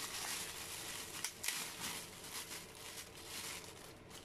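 Clear plastic bag crinkling and rustling as a metal scissor-arm microphone stand is drawn out of it, with a couple of sharper crackles a little after a second in.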